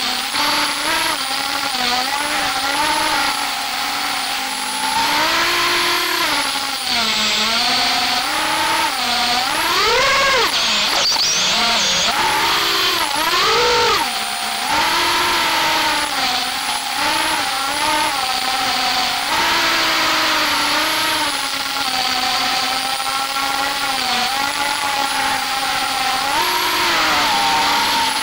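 FPV quadcopter's brushless motors and propellers, heard from the onboard camera, whining steadily with a pitch that rises and falls with throttle. Twice, about ten and thirteen seconds in, the whine sweeps sharply up and back down in hard throttle punches.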